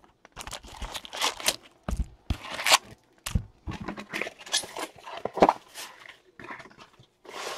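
Wrapped trading-card packs crinkling and rustling as they are lifted out of a cardboard hobby box and stacked, with irregular crackles and a few soft knocks as piles are set down.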